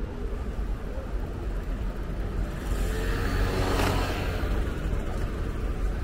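A car driving past close by: its engine and tyre noise swells about two and a half seconds in, is loudest near four seconds and fades a second later, over a steady low rumble.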